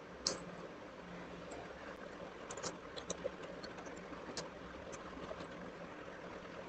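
Faint, scattered computer keyboard clicks over a low, steady background hum.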